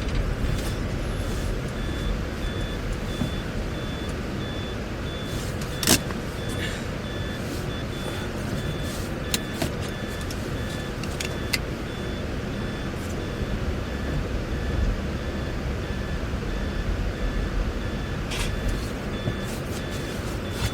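Steady low rumble of an SUV's engine and road noise heard from inside the cabin while driving, with a faint electronic beep repeating in regular on-off pulses. A few sharp clicks or knocks, the loudest about six seconds in.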